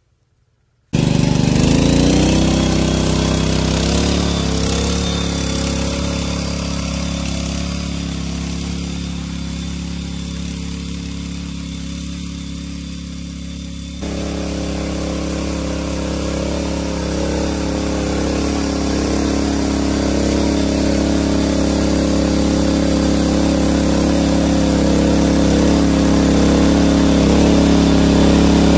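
Small petrol engine of a walk-behind motor hoe (rotary tiller) running steadily while its tines churn the soil. It comes in abruptly about a second in and gets louder partway through.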